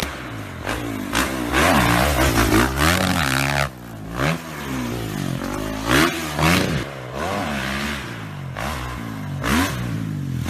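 Dirt bike engine revving, its pitch rising and falling again and again with repeated bursts of throttle.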